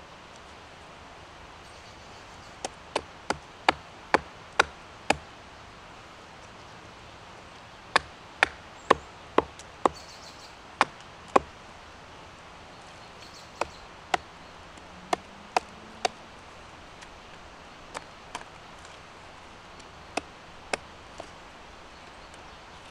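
Hatchet blows hewing a split wood blank held on a wooden chopping block: sharp chops in four quick runs of about two a second, with short pauses between, the last few lighter.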